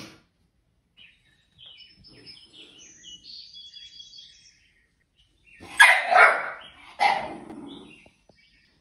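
Faint bird chirps from a nature video on the television, then a young dog barks twice, about a second apart, at the animals on the screen.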